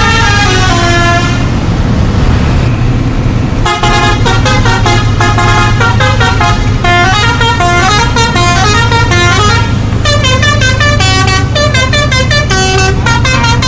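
A bus's musical horn playing a tune of stepped notes over the steady low drone of the bus engine. The horn breaks off for about two seconds near the start, then plays again. In the last few seconds its notes come in fast, stuttering pulses.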